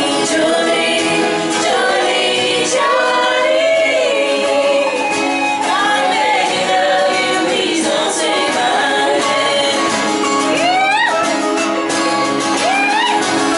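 Live acoustic music: singers' voices, including a woman's, over several strummed acoustic guitars.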